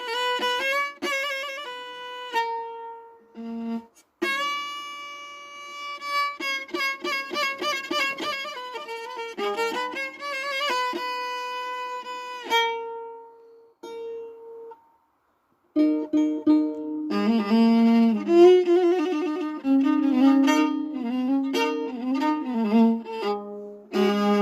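Instrumental background music: a string melody of held notes. It drops out for about a second around the middle, then comes back louder and fuller, with lower notes underneath.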